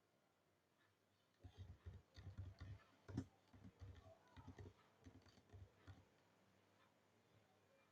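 Faint typing on a computer keyboard: a quick, irregular run of keystrokes starting about a second and a half in and stopping about six seconds in.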